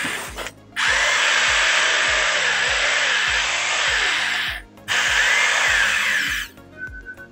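A Powertex 2-26 (26 mm) hammer drill's motor runs freely without load in three bursts. The longest lasts nearly four seconds, and each starts and stops sharply as the trigger is pulled and let go. This is a test run after a switch replacement: the drill now starts and runs normally.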